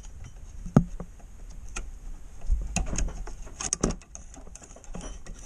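A metal hook tool clicking and scraping against a coolant hose fitting and its retaining clip: a handful of sharp clicks, the loudest a little under a second in.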